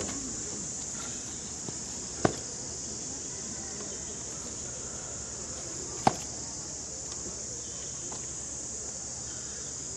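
Steady high-pitched insect buzzing, with two sharp knocks, about two seconds in and again about six seconds in.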